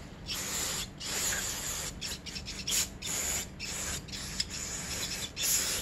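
Aerosol cleaner sprayed through a thin straw nozzle onto a Keihin FCR carburetor part, in a series of short hissing bursts.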